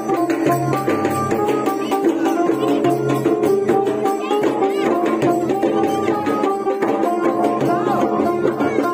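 Karam folk dance music: quick, steady hand-drum strokes under a melody of held notes that step from pitch to pitch.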